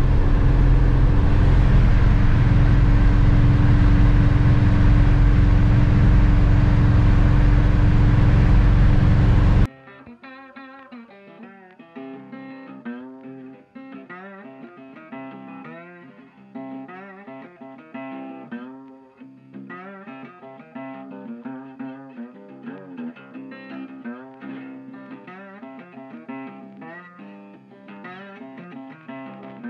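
Cab noise of a 1955 Chevrolet at highway speed: the engine's steady drone with road and wind noise, cut off suddenly about ten seconds in. Background guitar music, plucked and strummed, follows.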